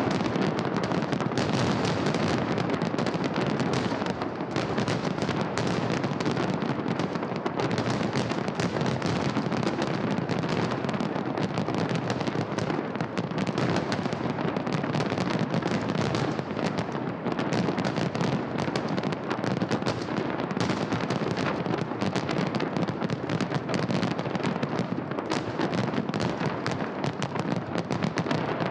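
Fireworks salute: a dense, continuous crackle of many small bangs and pops, going on without a pause at a steady loudness.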